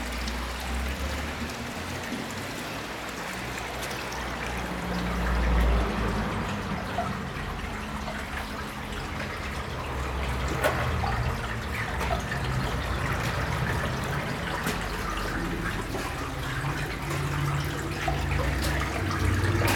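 Spring water trickling and running steadily in an underground stone channel, with a few faint clicks and occasional low rumbles.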